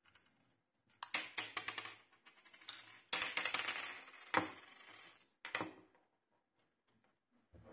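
Metal clicking and rattling as a scooter's mechanical disc brake caliper is worked off the rear brake disc and handled. It comes in two bursts of rapid clicks, about a second in and about three seconds in, followed by a couple of sharp single clicks.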